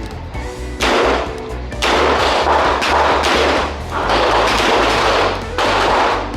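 Background music with a steady bass line and loud, heavy hits about once a second.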